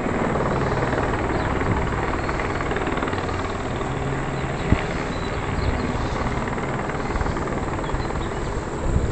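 A steady engine drone over a continuous rushing noise, with a sharp knock about halfway through and another near the end.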